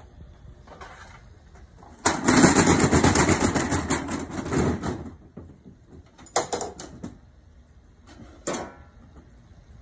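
Aluminium accordion hurricane shutter being slid along its track, a loud rattling rush of its folding blades that starts suddenly and lasts about three seconds. Two shorter clattering bursts of the shutter follow.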